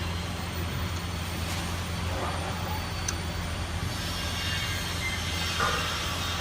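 A steady low hum, with a faint click about three seconds in.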